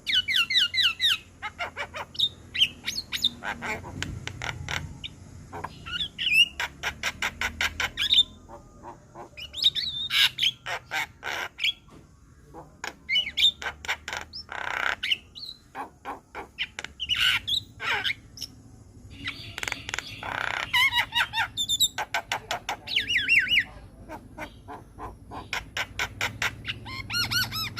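Javan myna (jalak kebo) singing: phrases of rapid, harsh chattering notes mixed with squawky whistled calls, each a second or two long, broken by short pauses.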